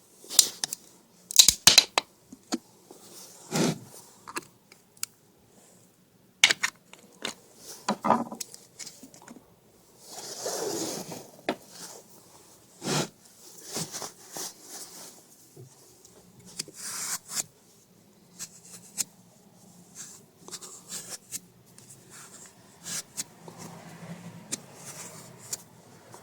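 Scattered plastic clicks and scraping as a flathead screwdriver pries the vent caps off a lead-acid car battery's cells, and a rag rubs dirt away from around the fill holes, with a longer scratchy rub about ten seconds in.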